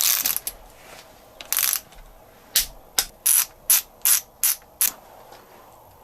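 Ratchet wrench clicking as casing nuts are tightened down. Two short bursts of clicking come in the first second and a half, then a quick run of about seven clicks, roughly three a second.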